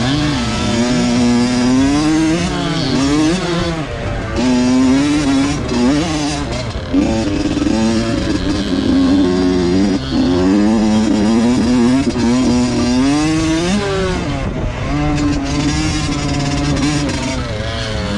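Two-stroke motocross dirt bike engine being ridden hard. It revs up and drops off again and again as the throttle is opened and shut.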